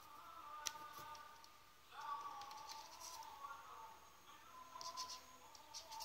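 Small clicks and scrapes from fingers handling a plastic photocell housing and its wires, the sharpest within the first second and a few more near the end, over a faint distant voice holding drawn-out tones.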